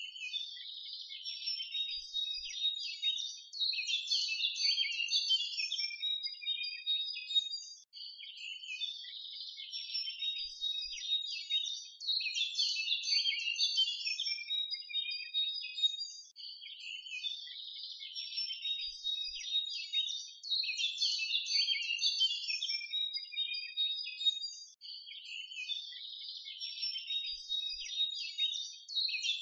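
Birdsong: many small birds chirping and twittering in a dense chorus. It is a recording that repeats about every eight seconds, a looped nature-sound track.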